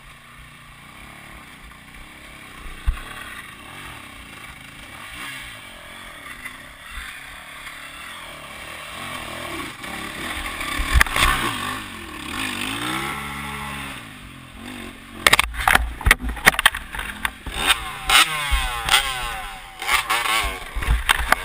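Enduro dirt bike engines revving; one bike revs up and passes close about ten seconds in, its pitch rising and falling. In the last several seconds, a run of loud knocks and thumps close to the microphone.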